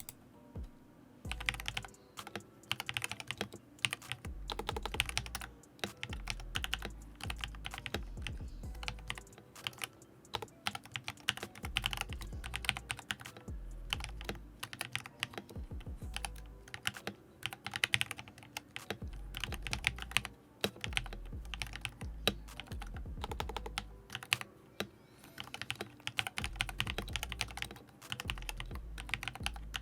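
Typing on a Redragon Lakshmi K606R mechanical keyboard fitted with AKKO CS Matcha Green linear switches and PBT keycaps: fast runs of keystrokes with short pauses, starting about a second in.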